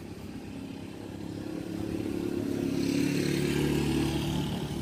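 An engine running, getting louder over the first three seconds and then holding steady.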